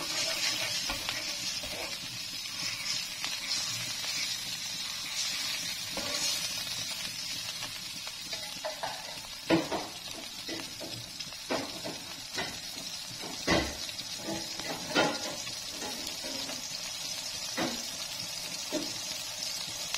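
Watery, tomato-red noodle broth heating in a stone-coated wok, giving a steady sizzling hiss. A plastic spatula stirs it at the start, and scattered sharp clicks and pops come in the second half.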